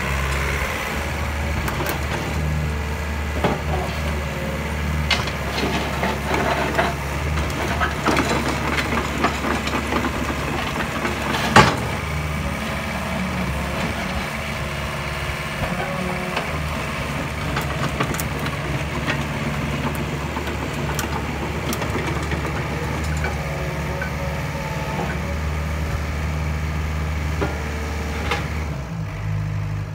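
Yanmar ViO50 mini excavator's diesel engine running as the machine tracks, slews and works its boom, the engine note stepping up and down as the hydraulics take load. Knocks and rattles run through it, with one sharp knock near the middle.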